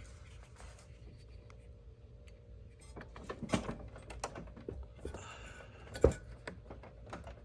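Scattered light clicks and knocks of hands working on a lawnmower engine, refitting the spark plug boot, with a sharper knock about 3.5 s in and the loudest about 6 s in.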